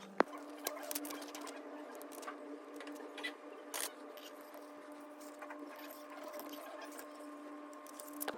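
Scattered light clicks and taps of small hand tools on phone parts, with a sharp click just after the start, over a steady electrical hum.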